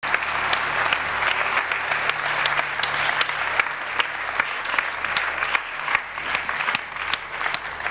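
Studio audience applauding: many hands clapping at once, the clapping thinning a little near the end.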